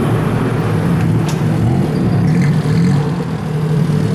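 Tuk-tuk (auto-rickshaw) engine running at low revs, a steady low hum whose pitch wavers a little about halfway through.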